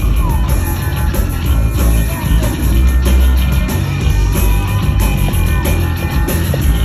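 Live rock music heard through a crowd's phone recording: heavy distorted bass and drums in an instrumental passage between vocal lines.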